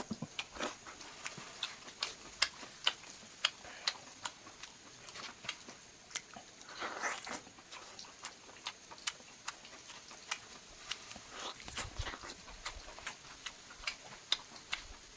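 Close-miked chewing of a chicken leg piece: irregular mouth clicks and smacks, a few each second, with a short louder crunch about seven seconds in.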